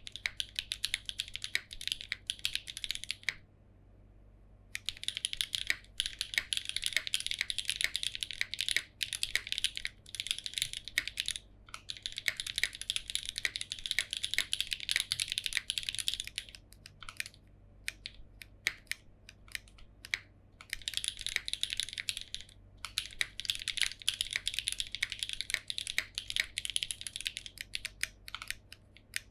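Typing on a Neo87 mechanical keyboard with Jieum V2 switches, GMK Oblivion keycaps and no foam inside the case: quick runs of crisp key clacks, broken by short pauses a few times.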